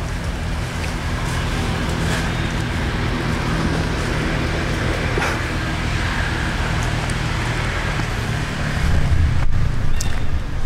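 Steady low motor hum over outdoor background noise, with a few faint clicks.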